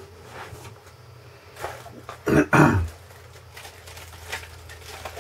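A man clearing his throat: two short, rough bursts a little past the middle. Around them, light crinkling and ticking of clear plastic parts being handled.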